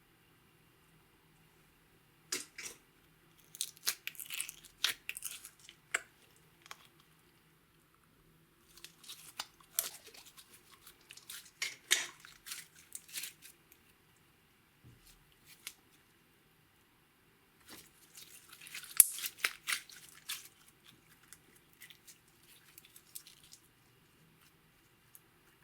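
Slime being mixed, making sticky crackling clicks and pops in three bouts with short pauses between.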